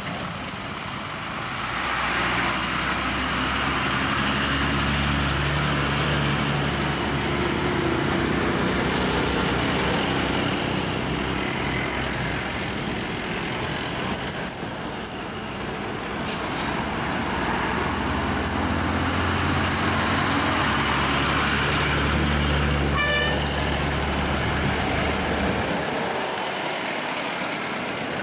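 Diesel engines of heavy buses pulling slowly around a hairpin bend. The low engine drone swells twice as each bus comes close and fades near the end.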